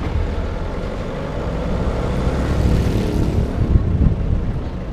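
A car driving along a street: engine and road noise with a steady low rumble.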